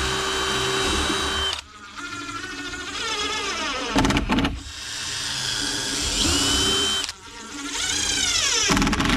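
Electric drill running in several short bursts of about two seconds each, its whine dropping in pitch as each burst ends, with a couple of sharp clicks between bursts.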